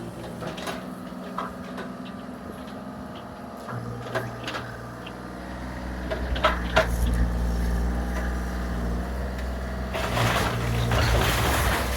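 Bobcat compact excavator engine running, its pitch and load rising about four seconds in, with sharp knocks and cracks as it works. From about ten seconds in there is a loud burst of crunching, rattling noise.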